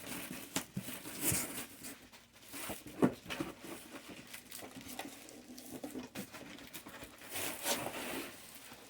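Packaging rustling, crinkling and scraping as it is pulled out of a shipping box, with irregular small clicks and a sharp knock about three seconds in.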